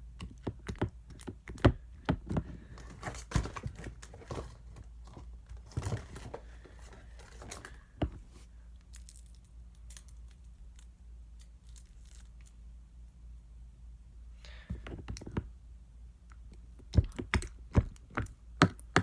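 Sticky, half-melted slime being squeezed and pulled apart by hand, giving irregular wet clicks and pops. It falls quiet for several seconds midway, then the clicking starts again.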